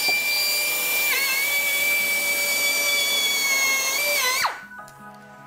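Euroboor BM45AIR pneumatic bevelling machine running at a high, steady whine as it rounds the edge of a drilled hole in steel plate. Its pitch drops slightly about a second in as the cutter takes load. Near the end it winds down with a falling pitch and stops, leaving faint background music.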